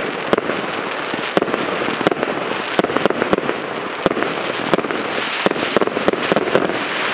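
A 200-shot consumer firework battery (OK Fireworks BAT20020F) firing in fast succession: sharp bangs several times a second over a dense, continuous rush of noise.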